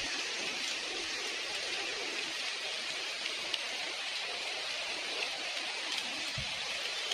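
Steady rain falling: an even hiss of drops with a few sharper ticks.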